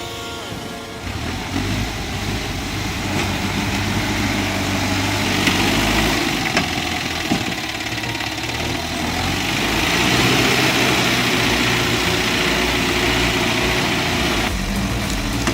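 A heavy log-hauling vehicle's engine running under load, its note shifting up and down in pitch and loudness a few times.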